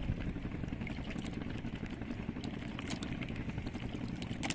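Steady low rumble of a small boat at sea, with a few faint clicks.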